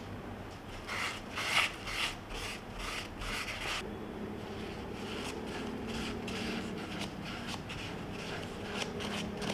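Kitchen tissue rubbed over a bamboo steamer basket's wooden slats and rim, a run of quick rubbing strokes that are strongest in the first few seconds and then go on softer. The bamboo is being wiped with cooking oil to keep it from drying out and cracking.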